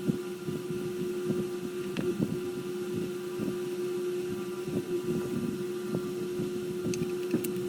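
A steady mechanical hum holding one constant tone, with a few faint light clicks near the end.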